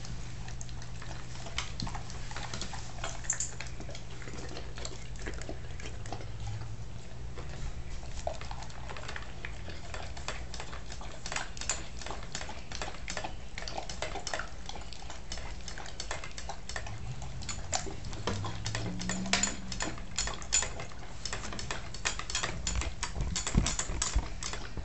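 Bernese mountain dog eating steak, gravy and kibble from a stainless steel bowl: sloppy, wet chewing with many quick clicks and clinks of food against the steel, getting busier in the second half. A steady low hum runs underneath.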